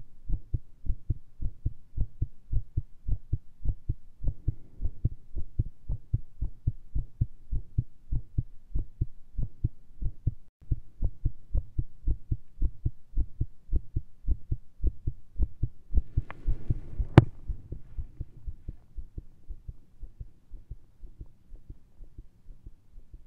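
A rapid heartbeat heard through a stethoscope chest piece with a lav mic, racing after a large dose of caffeine: a quick train of low thumps. About two-thirds of the way through, a rustle and one sharp knock sound over it, the loudest moment, and the beats are fainter after it.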